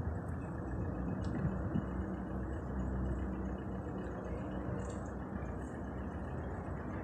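Steady low background rumble with a faint hum running through it.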